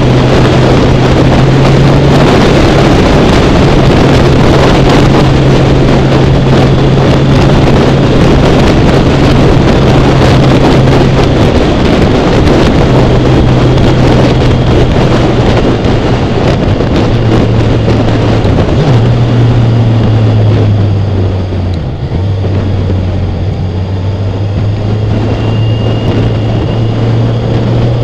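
Kawasaki Ninja 1000 inline-four motorcycle engine running at a steady cruise under heavy wind noise on the microphone. In the second half the engine note breaks and shifts a few times and the wind noise eases.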